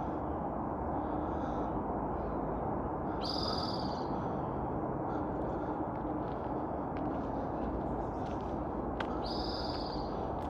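A bird gives two short, harsh calls about six seconds apart, over a steady low background rumble.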